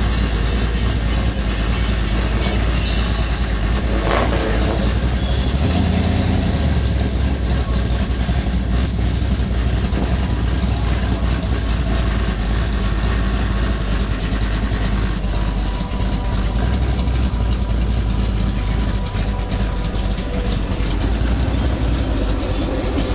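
Mopar car's engine rumbling steadily at low cruising speed, heard from inside the cabin with road and wind noise.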